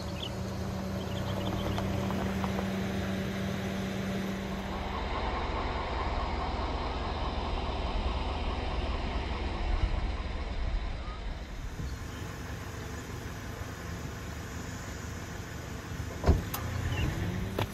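Car running on the road: a low engine and road rumble with a steady hum that stops about five seconds in. A single knock comes near the end.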